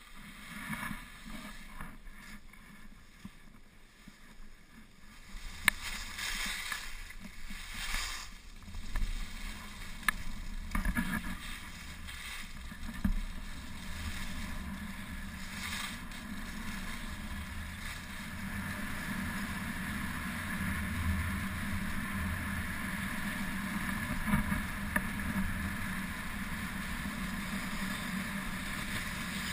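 Skis sliding and scraping over packed snow on a downhill run, with wind rushing over the microphone. Louder scraping swells come between about six and thirteen seconds in, then a steadier hiss.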